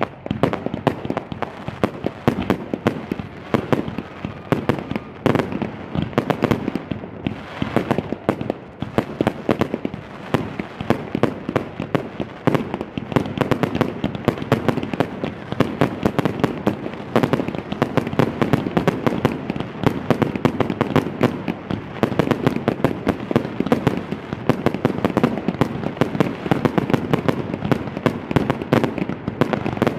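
Fireworks display: a dense, continuous barrage of aerial shell bursts and crackling, several bangs a second with no let-up.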